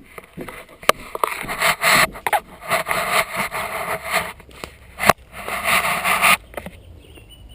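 Loud scraping and rubbing in long stretches, broken by a few sharp knocks, stopping about a second before the end.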